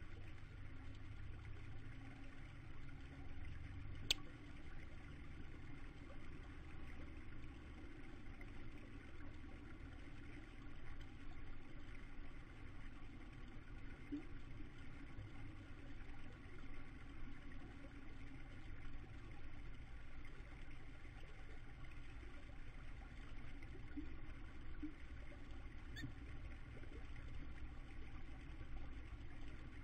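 Steady low rumble with a faint hum, with one sharp click about four seconds in.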